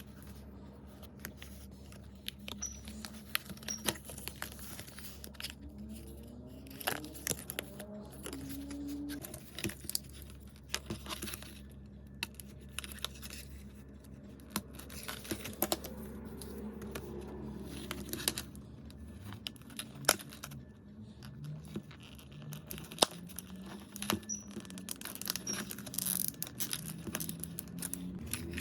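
Plastic packaging crinkling and tearing, with many irregular small clicks and taps as toys are unwrapped and handled.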